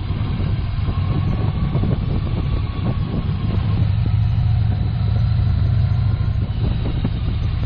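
Yamaha XV1900 Midnight Star's V-twin engine running steadily while riding.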